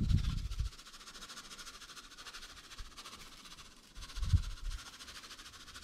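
Two soft, low thuds about four seconds apart as a hand pats dry rub onto a rack of beef ribs on a metal sheet pan, over a faint steady hiss.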